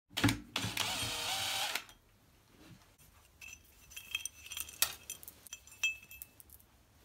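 Cordless drill running for just over a second with its bit in a hole in an aluminium plate, its motor pitch shifting slightly as it goes. Afterwards a few light metallic clinks and ticks.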